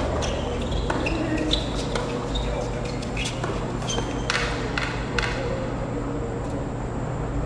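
A doubles tennis point on a hard court: the ball is struck by rackets with sharp pops about a second apart, starting with the serve, mixed with short high squeaks of tennis shoes on the court. A steady low hum runs underneath.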